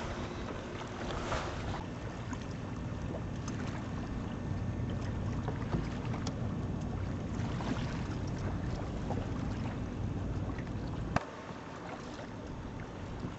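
Wind buffeting the microphone over the rush of water along a sailboat's hull under way, with scattered small ticks. A sharp click comes near the end, after which the low rumble drops.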